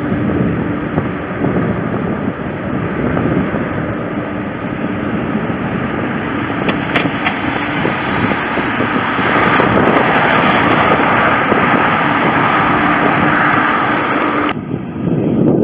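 Twin-engine jet airliner climbing away after takeoff, its engines at climb power giving a steady rushing roar that swells in its upper register in the second half, with wind noise on the microphone. The sound changes abruptly near the end at an edit.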